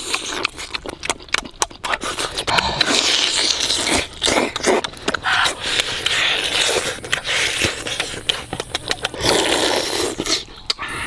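Close-miked eating sounds: a man biting into and chewing cooked turtle, with a rapid run of wet smacks, clicks and slurps from the mouth.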